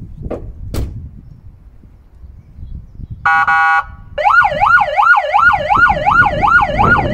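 Newly wired aftermarket electronic siren being tested: a short steady horn blast about three seconds in, then a fast yelp tone rising and falling about three times a second. Two short knocks come in the first second.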